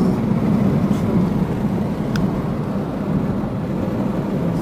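Steady road and engine noise of a car driving along an asphalt highway, heard from inside the cabin, with a single short click about two seconds in.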